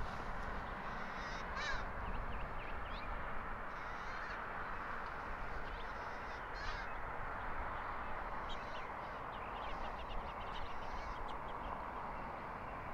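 Short bird calls scattered through, a few seconds apart, over a steady background noise.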